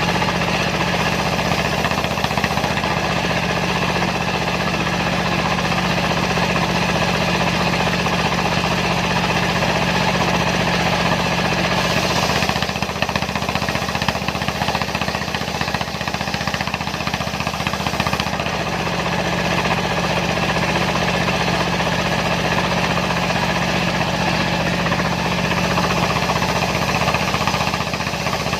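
Single-cylinder Dongfeng diesel engine running steadily under load, driving a homemade circular saw used to split sengon logs.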